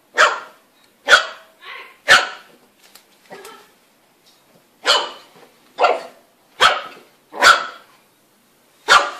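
A small fluffy puppy barking at its own reflection in a mirror: short, sharp barks about once a second, with a pause of a second or so near the middle and a few softer yips in between.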